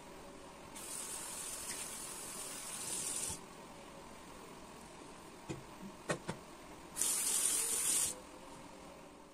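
A tap runs into a sink twice, first for about two and a half seconds and then for about a second near the end. A few light knocks come in between.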